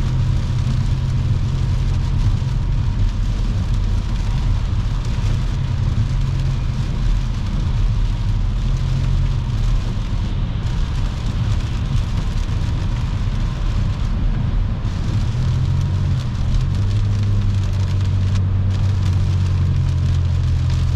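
Car driving on a rain-soaked highway, heard from inside the cabin: a steady low drone of engine and tyres, with the hiss of wet tyres and rain. The drone shifts slightly in pitch about two-thirds of the way through.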